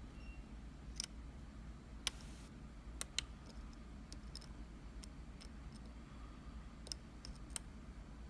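Light metallic clicks of a dimple pick and tension tool working the pins of an Iseo dimple lock cylinder: about a dozen sharp, uneven ticks with a steady low hum beneath.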